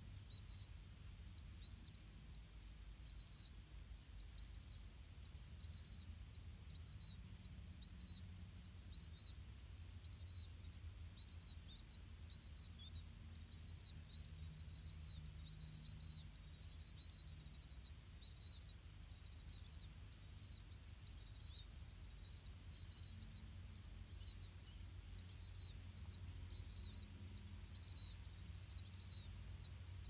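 A high whistled bird note repeated steadily, about three every two seconds, over a low steady rumble.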